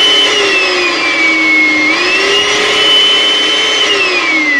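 Oreck Magnesium vacuum cleaner running, its motor a loud high whine. The pitch sags, climbs back about two seconds in, then begins falling steadily near the end as the motor winds down.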